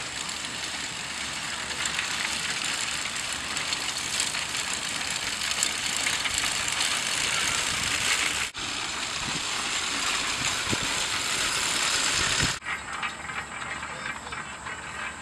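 Horse-drawn corn binder rattling steadily as it cuts standing corn. The sound breaks off abruptly about eight and a half seconds in and again near twelve and a half seconds, and is quieter after the second break.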